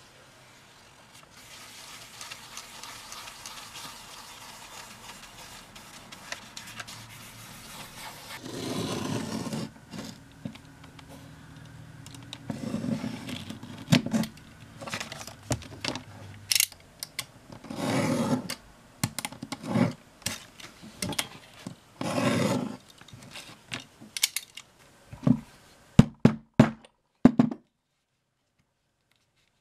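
Leatherworking hand-tool sounds on veg-tanned leather: first a soft steady brushing hiss, then a series of separate scraping strokes as a knife cuts the leather along a metal ruler. Near the end come a few quick sharp clicks.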